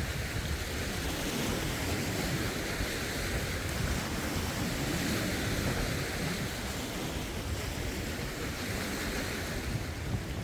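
Lake waves washing and lapping over rocks in a steady wash that swells and eases every few seconds, with wind rumbling on the phone's microphone.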